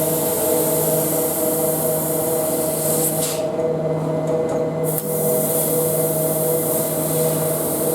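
Mitsubishi ML2512HV-40CF 4 kW laser cutting machine running: a steady hum with several tones under a high hiss. The hiss cuts out for about a second and a half midway, then comes back.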